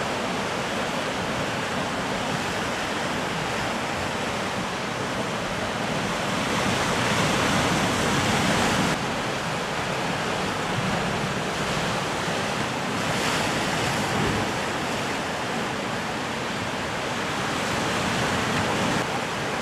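Sea surf breaking and washing against a rocky lava shore, a continuous rush that swells and falls several times, loudest about seven to nine seconds in.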